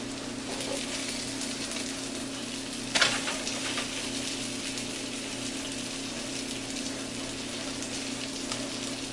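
Steady sizzle of French toast slices frying in butter in a nonstick pan as they are turned with tongs, with a short louder burst about three seconds in.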